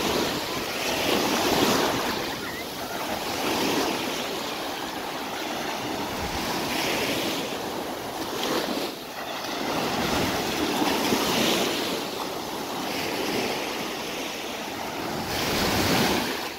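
Sea surf washing onto a sandy beach, the waves swelling and fading every couple of seconds.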